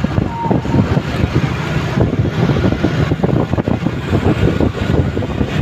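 Road traffic noise: a heavy vehicle running close by, rough and fluctuating, with no horn melody sounding.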